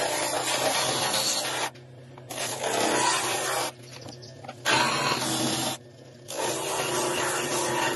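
Wood being sanded or rasped in bouts of one to two seconds, broken by three short pauses, over a steady low hum.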